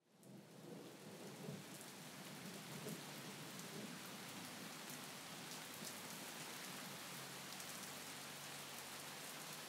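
Faint, steady rain-sound ambience, a soft even patter of rainfall that fades in over the first second.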